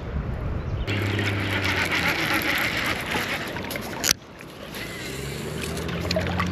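Baitcasting reel being cranked to wind in the lure, a steady whir of the gears, then a single sharp click about four seconds in as the reel is set for the next cast.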